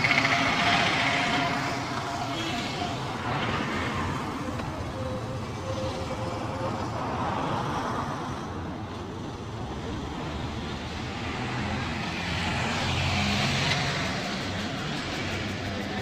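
Street traffic going by, a steady hum of road vehicles that swells as one passes near the start and another about three-quarters of the way through.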